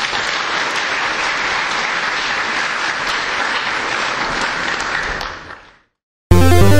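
Audience applauding, a dense steady clapping that fades out after about five seconds. After a brief silence, a loud electronic music jingle starts near the end.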